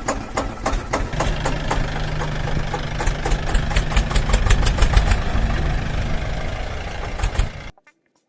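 Vehicle engine running with a rapid, regular knocking beat of about four knocks a second and a steady low hum, cutting off abruptly near the end.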